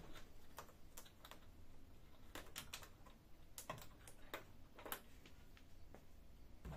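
Faint, irregular plastic clicks and taps, about a dozen spread unevenly: a copier's wiring connector being unplugged and its cable handled.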